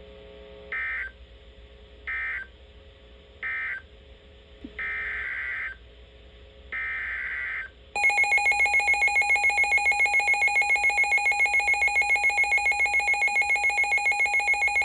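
NOAA Weather Radio emergency alert (SAME) data bursts: three short screeching bursts that end one warning, then two longer bursts that begin the header of the next. About eight seconds in, the weather radio receiver's own alarm cuts in, a loud, rapidly pulsing electronic beep that keeps going.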